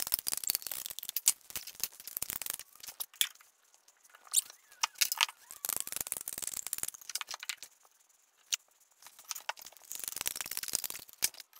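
Hand-held caulking gun dispensing construction adhesive: irregular clicks, squeaks and rattles of the trigger and plunger rod as the bead is squeezed out. There is a brief pause a little before 8 s.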